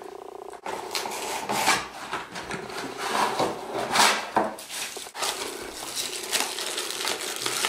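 A cardboard frozen-pizza box being opened and handled: rustling and scraping, with a few sharp knocks against a wooden table as the plastic-wrapped pizza is slid out.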